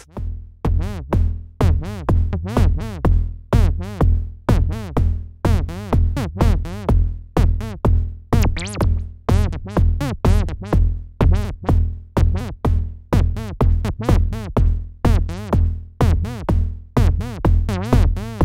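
Ableton Drift software synthesizer playing a rhythmic repeating pattern over a deep bass, several quick pulses a second. Its filter is swept up and down by a looping envelope, so each pulse bends in tone, and the sound shifts as the settings are tweaked.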